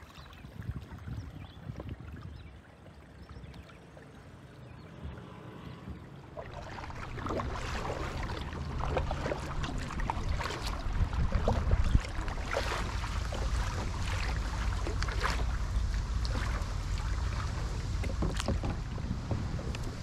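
Kayak paddle dipping and splashing in lake water stroke after stroke, with wind rumbling on the microphone. It grows louder about six seconds in.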